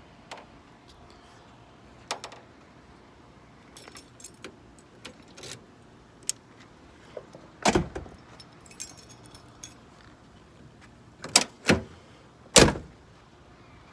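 A bunch of car keys jingling and clicking as they are handled, with a few loud knocks, one a little past the middle and three close together near the end.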